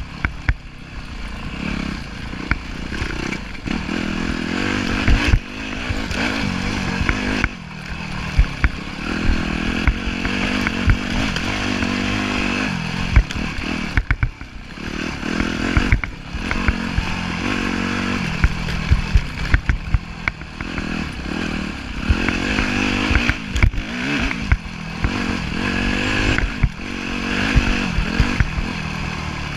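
A 2010 Yamaha YZ250F's 250 cc four-stroke single-cylinder engine on a trail ride, revving up and dropping back over and over as the throttle is opened and shut through the gears. Short knocks and rattles from the bike running over rough ground come through the whole time.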